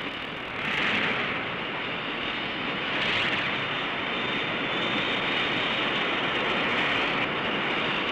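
Sci-fi sound effect of a huge planet rushing past Earth: a dense, steady rushing rumble with no tune, swelling about a second in and again around three seconds in.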